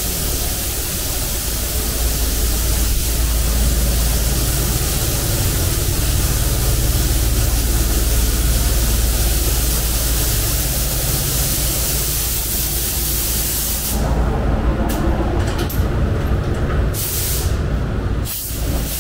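Steady hiss of compressed air from a pneumatic spray or blow tool, over a low hum. About fourteen seconds in, the hiss breaks into short on-off bursts.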